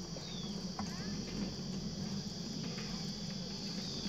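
Steady high-pitched shrilling of insects, with a low steady hum underneath and a couple of faint short chirps.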